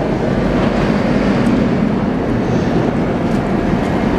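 Steady low rushing noise of wind buffeting the microphone, over rain falling on wet pavement.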